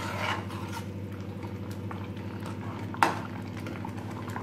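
Coloured water boiling in a kadai as ground poha powder is stirred in with a steel spoon, with one sharp tap about three seconds in.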